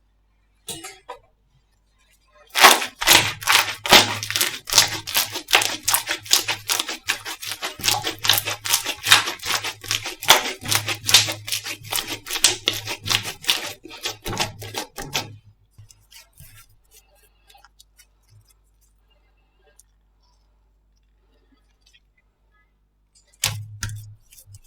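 Slime being squeezed and pressed by hand, giving a dense run of rapid crackling pops and clicks for about twelve seconds. A few faint pops follow, then a short burst of clicks near the end.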